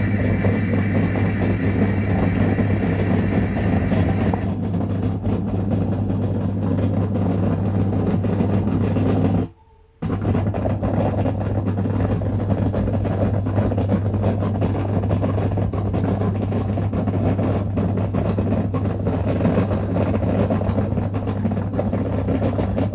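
Samsung dishwasher running its wash cycle: a steady pump hum with water spraying and splashing. A brighter hiss of spray drops away about four seconds in. Near the middle everything stops for half a second, then starts again.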